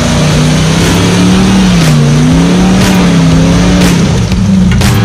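Modified off-road pickup truck's engine revving hard while it ploughs through deep mud, its pitch rising and falling. A few sharp knocks are heard over it.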